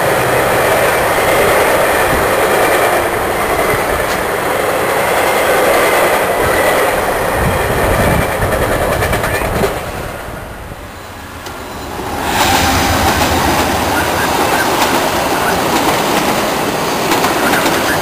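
Passenger rail coaches rolling past, with a steady rumble and the wheels clacking over the rail joints. The noise dips briefly about ten seconds in, then the rolling resumes.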